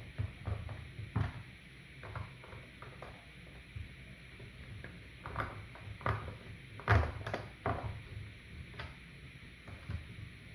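Irregular clicks and knocks of hands handling the plastic casing of a ResMed AirSense 10 CPAP machine, with the loudest knocks about seven seconds in.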